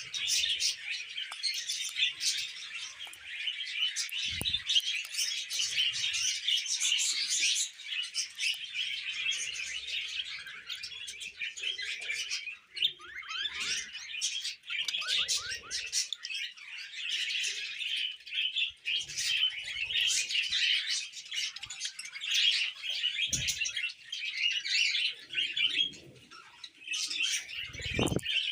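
Budgerigars chattering and chirping nonstop, a dense run of quick high chirps and warbles, with a few soft low thumps now and then.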